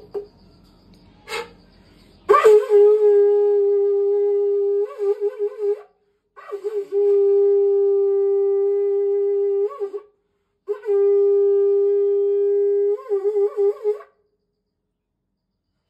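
A conch shell (shankh) blown in three long blasts, each held steady at one pitch for about three and a half seconds and ending in a quick warble. A few faint clicks come just before the first blast.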